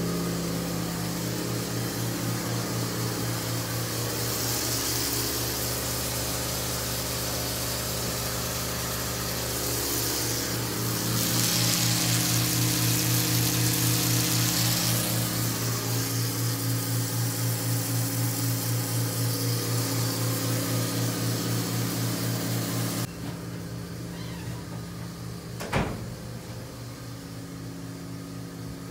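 Small electric pump on a maple-sap reverse-osmosis setup running with a steady, pulsing hum. Sap splashes from a hose into a plastic barrel, and the hiss is loudest in the middle. About 23 s in, the sound drops abruptly to a quieter level, and there is one sharp click near the end.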